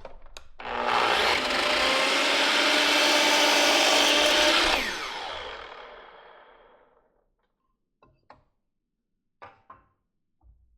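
An electric power tool runs at full speed for about four seconds, then winds down with falling pitch once it is released. A few light knocks follow near the end.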